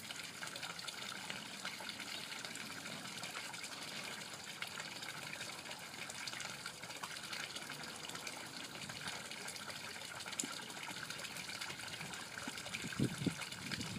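Steady, faint outdoor background hiss, with a few soft knocks near the end.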